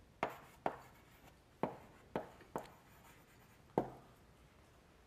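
Chalk writing on a blackboard: about six sharp taps and short scrapes of the chalk as words are written, each one brief and fading quickly.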